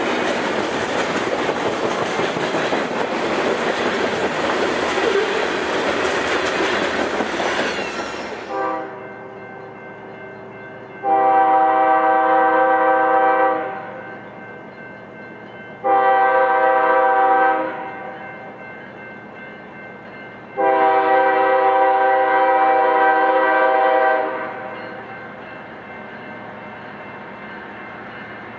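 Freight cars rolling past with a steady clickety-clack of wheels on rail. Then, after a cut, an approaching diesel locomotive's multi-chime air horn sounds three blasts, long, shorter, long, over a low engine rumble: the horn warning for a grade crossing.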